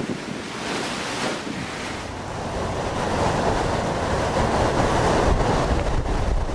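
Hurricane Charley's wind roaring and buffeting the microphone, with driving rain. A little over two seconds in, the sound turns deeper and grows steadily louder.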